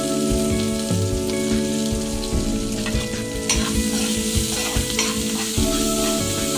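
Sliced onions and curry leaves frying in hot oil in an aluminium pan, sizzling steadily while a spatula stirs them with occasional clicks against the pan. Steady held musical tones run underneath.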